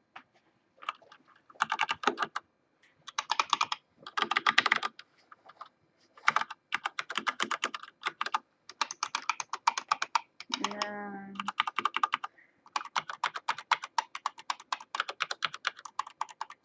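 Keys being typed in quick bursts of clicks, with short pauses between runs, while the Azolt G Reformer's half-mechanical switches are compared by feel with linear Cherry MX switches.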